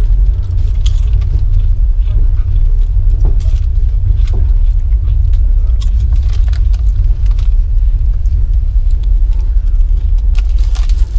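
Steady low rumble of a Russian sleeper-train carriage running on the rails, with the crinkling of a potato-chip bag and crunching of crisps as short crackles over it.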